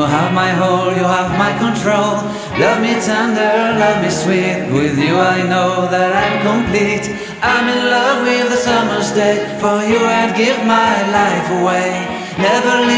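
Background music: a song with a lead vocal over a steady bass line.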